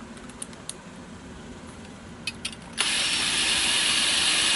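A power drill drives a sheet metal screw into thin sheet metal. A few light clicks come first, then about three seconds in the drill starts with a steady whirr.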